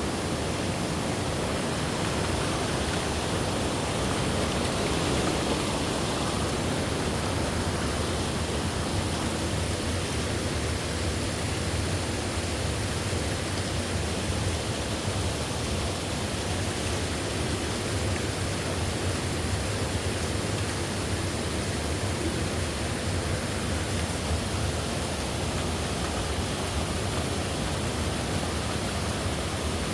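Waterfall, its falling water making a steady, unbroken rush.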